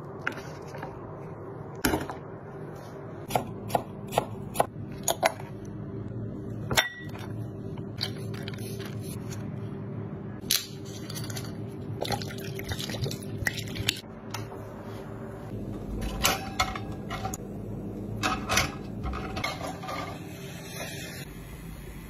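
Kitchen sounds of preparing crabs: scattered sharp clicks and knocks of hard shells and ice against a wooden board and a glass bowl, and liquid poured from a glass bottle into the bowl, over a steady low hum.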